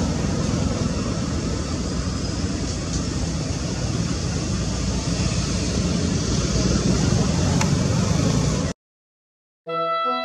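Steady outdoor rumbling noise, heaviest in the low end, that cuts off abruptly near the end. After a moment of silence, music starts.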